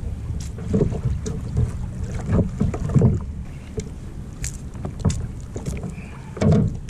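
Wind on the microphone and water moving against a fishing kayak on the sea, with scattered sharp clicks and knocks from the boat and gear. The loudest knock comes about three seconds in, with another bump near the end.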